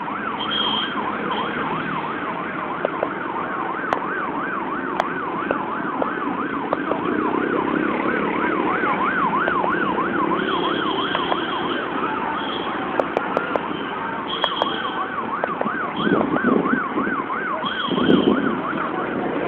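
An electronic siren warbling, its pitch sweeping up and down about twice a second, over the running engines of a stream of passing motorcycles; the siren drops out briefly about two-thirds of the way through, then resumes.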